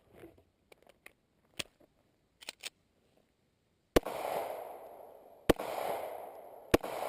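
Three gunshots from a firearm, about a second and a half apart, each followed by a long rolling echo. Before them come a few light clicks.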